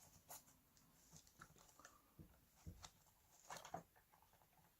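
Near silence with a few faint, scattered clicks and rustles as a 2.5-inch SSD with rubber side bumpers is handled and pressed into a laptop's drive bay, a tight fit.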